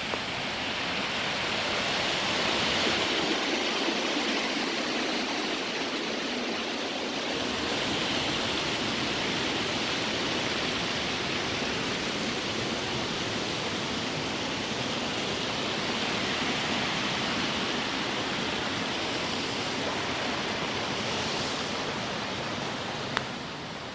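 Waterfall's steady rush of cascading water, with a single short click near the end.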